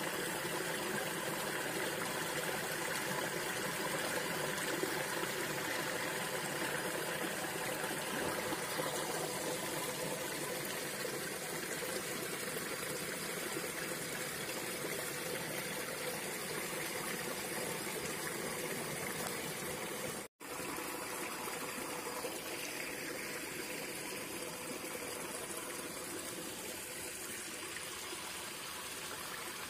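Running water from a rocky stream, a steady, even rush that drops out for an instant about twenty seconds in.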